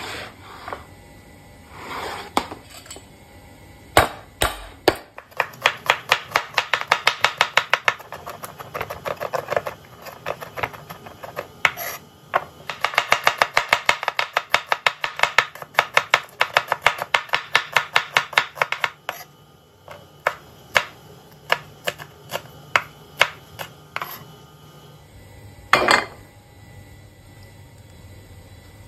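Knife chopping on a cutting board in two long runs of quick, even strokes, about five a second, then slower single chops.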